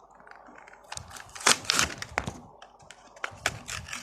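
Plastic blister packaging of a Hot Wheels die-cast car being handled, a run of sharp crackles and clicks, loudest about a second and a half in.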